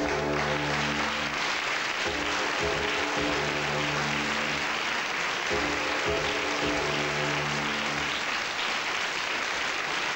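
Studio audience applauding over a music cue of low held chords in three long phrases; the music stops about eight seconds in while the applause goes on.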